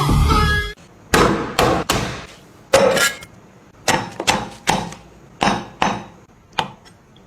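About a dozen irregular sharp knocks and clinks of kitchen utensils striking hard surfaces, a few with a short ringing tone.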